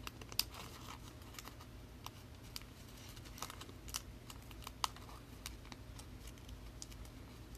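Light, irregular clicks and taps from trading cards and plastic card holders being handled, with a few sharper clicks.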